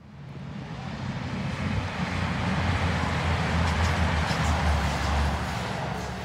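A CrossCountry passenger train passing close by. The noise builds over the first couple of seconds, holds with a low drone underneath, and eases off near the end.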